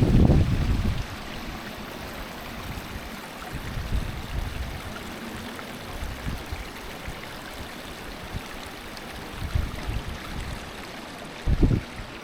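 Small waterfall and stream flowing steadily, a continuous rushing of water. Low rumbles of wind buffeting the microphone come in the first second and again near the end.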